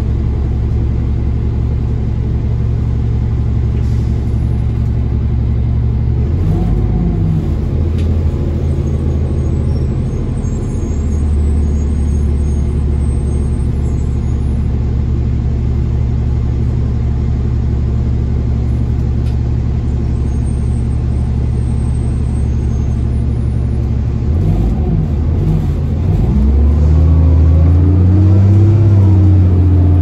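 Orion city bus's engine idling steadily, heard from inside the passenger cabin while the bus stands. Near the end the engine revs up as the bus pulls away, rising in pitch and getting louder.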